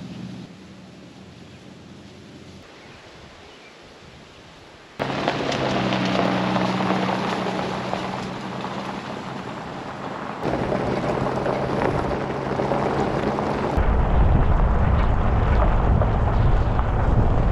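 Pickup truck engine running with tyres crunching over a gravel road, cutting in suddenly about five seconds in. From about fourteen seconds a heavy low rumble of the truck driving along the gravel road takes over, with wind against the hood-mounted microphone.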